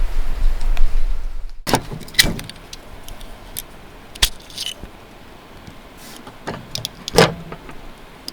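A low rumble that cuts off abruptly about a second and a half in, followed by a few scattered sharp metallic clinks and knocks, loudest near the start and again near the end.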